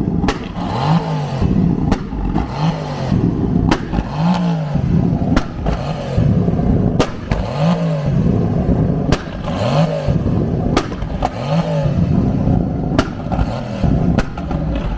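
The V8 engines of a Mercedes-AMG GT and a C7 Corvette Z06 being revved while parked, in repeated short blips that rise and fall about every one and a half to two seconds. Sharp cracks are heard between the revs.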